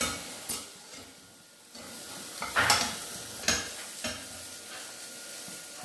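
Beaten egg for a masala omelette sizzling in a non-stick frying pan, with a spatula scraping and knocking against the pan a few times.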